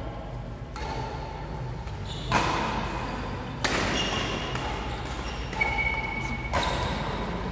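Badminton rackets striking a shuttlecock four times during a doubles rally, each hit sharp and followed by the echo of a large hall.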